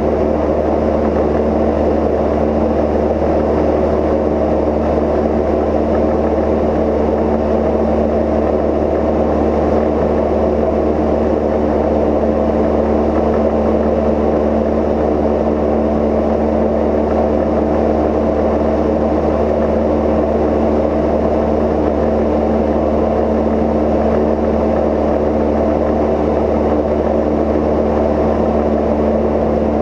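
Cozy Mk IV canard pusher in flight: its piston engine and pusher propeller give a loud, steady drone with no change in pitch.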